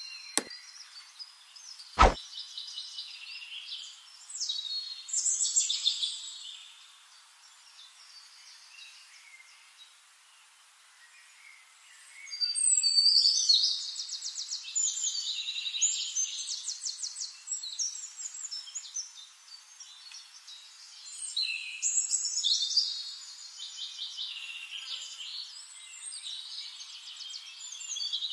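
Birds chirping in fast trills of high repeated notes, coming in bursts with quieter gaps between them. A single sharp click about two seconds in, a mouse-click effect.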